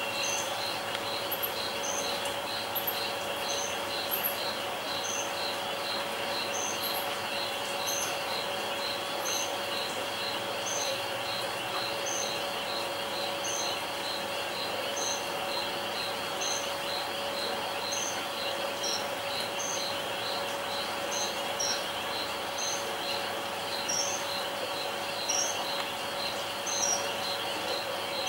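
Night insect chorus of crickets trilling steadily, with short high chirps repeating evenly about twice a second and another call coming about every second and a half. A faint steady hum lies underneath.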